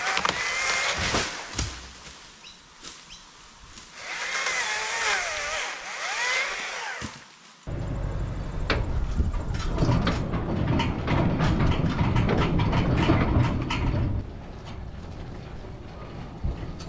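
Quieter outdoor sounds with some warbling high glides at first. After about eight seconds a loud low rumble with rattling and clatter takes over: a heavy caravan and its tow vehicle creeping over rough farm ground, heard from the caravan's drawbar. It eases off a couple of seconds before the end.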